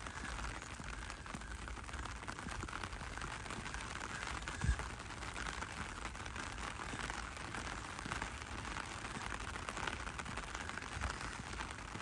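Steady rain falling, an even hiss, with one short low thump a little before halfway through.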